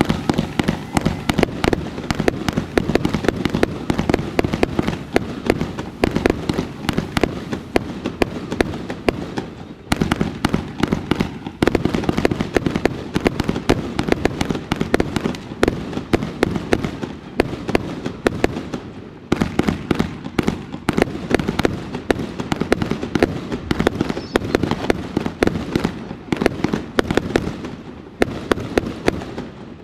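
Fireworks going off in a dense, rapid barrage of bangs and crackles, with a few brief breaks.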